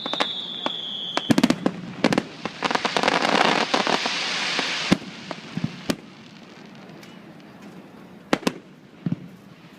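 Aerial fireworks going off: a whistle falling in pitch that fades about a second in, a run of sharp pops, then a dense crackling stretch that cuts off suddenly around the middle, followed by scattered bangs, two louder ones near the end.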